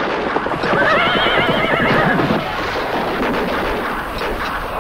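A horse whinnies with a quavering call about a second in, lasting roughly a second and a half, over the dense, rapid hoofbeats of many horses galloping.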